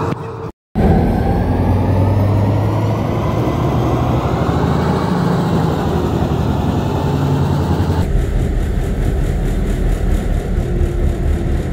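Hitachi driverless metro train running through a tunnel: a steady rumble of wheels on rail with a traction-motor whine that slowly rises and falls in pitch. The sound cuts out briefly about half a second in and changes abruptly about eight seconds in.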